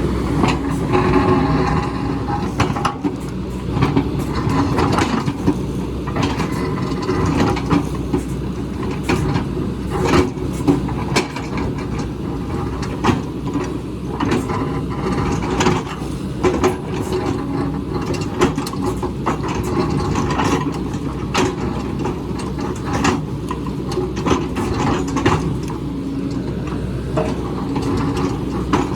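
Hydraulic excavator's diesel engine running steadily under load, with irregular clanks and knocks, about one or two a second, as the bucket works into rock.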